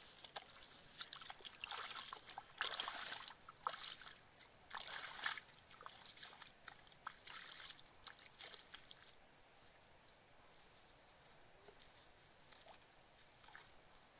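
Bare feet sloshing and splashing through shallow muddy water and wet grass, an uneven step about once a second, growing fainter and dying away about nine seconds in as the walker moves off.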